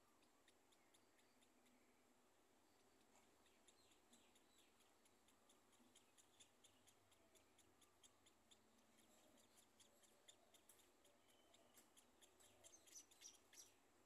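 Faint, high-pitched cheeping of scaly-breasted munia nestlings in the nest: short peeps that come more and more often and grow louder toward the end.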